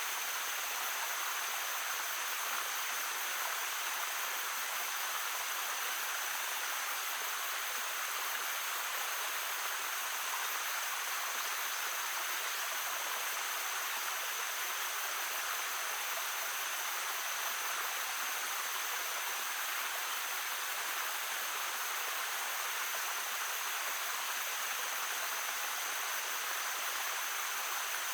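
Shallow stream babbling steadily over stones, a continuous even rush of water without breaks.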